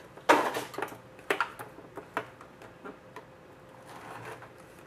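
A hard collector's card box being handled on a glass table: a scraping knock just after the start, then light clicks and taps about once a second. Near the end, faint snipping as scissors cut the box's seal.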